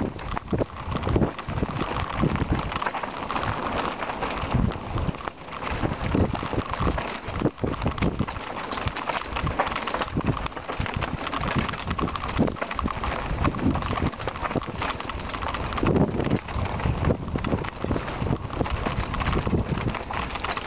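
Mountain bike rolling fast down a rocky gravel trail: tyres crunching over loose stones and the bike rattling with a constant run of irregular clicks and knocks, over uneven rumbling wind on the microphone.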